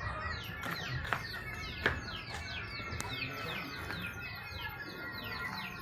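A bird calling in a fast, even series of short falling chirps, about four a second, with two sharp clicks in the first two seconds.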